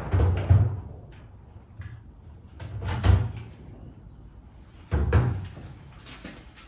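Three dull knocks or thumps, about two and a half seconds apart, each lasting about half a second.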